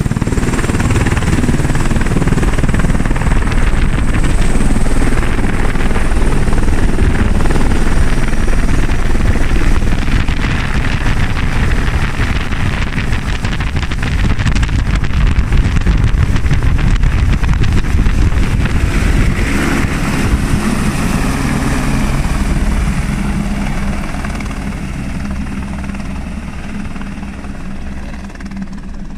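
Helicopter close by at take-off: rotor chop with a high turbine whine over it in the first several seconds as it lifts off overhead. It fades steadily over the last five seconds as the helicopter flies away.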